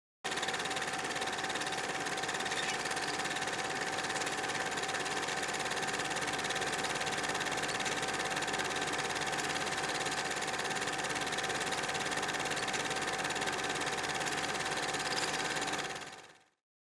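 Film projector running: a steady mechanical whir with a fast, even clatter that fades out near the end.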